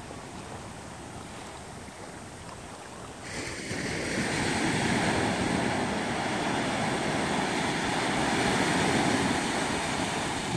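Ocean surf washing over a rocky shore, faint at first, then suddenly louder from about three seconds in as waves break close by.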